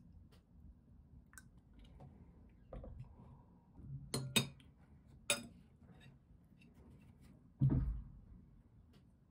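Metal cutlery clinking against a ceramic bowl: a few light taps, then two sharp clinks about a second apart, and a dull thump near the end.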